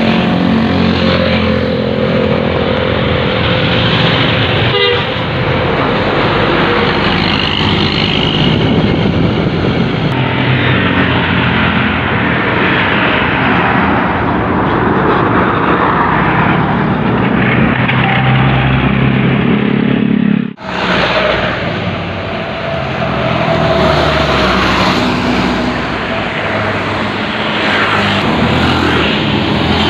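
Tour bus's Basuri telolet horn sounding its multi-tone musical call in stretches of steady chords, over loud bus engine and road noise.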